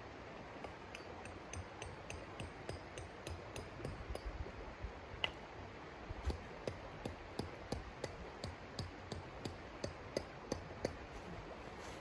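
Repeated light, sharp knocks, about two to three a second, from striking at the ground by hand, with one louder strike about five seconds in. The steady rush of a flowing river runs underneath.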